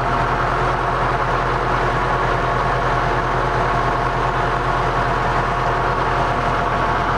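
1981 White 2-105 tractor's diesel engine idling steadily, a low, even pulsing run with no change in speed.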